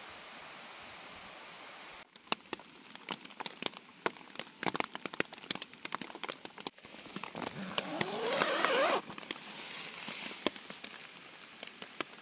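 Raindrops tapping irregularly on a tent's flysheet, after a steady hiss of rain at first. A loud rising whoosh comes about eight seconds in and cuts off suddenly.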